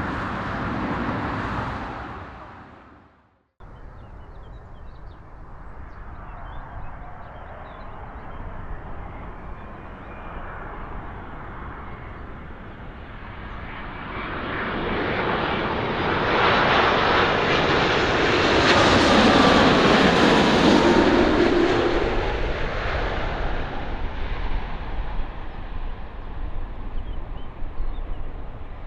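Jet airliner engines passing close by: the noise builds slowly, peaks with a falling whine about two-thirds of the way through, then fades. A few seconds in, an earlier sound fades out to a moment of silence before it.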